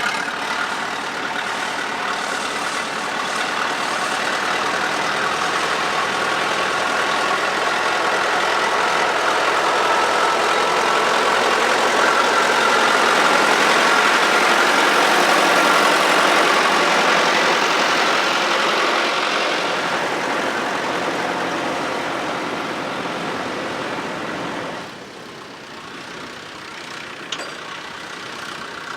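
Tractor engine running, growing louder to a peak about halfway through and then fading, with a sudden drop in level near the end.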